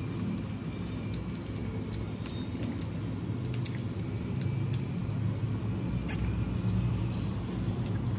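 A steady low rumble throughout, with scattered small clicks and crinkles of fingers working rice and chicken chilli in a foil takeaway tray.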